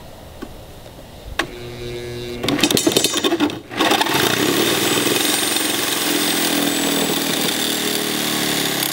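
Sawzall reciprocating saw with a metal-cutting blade cutting through an iron baluster bar. The saw clicks on about a second and a half in, chatters as the blade bites, then runs steadily through the cut for about five seconds and stops near the end.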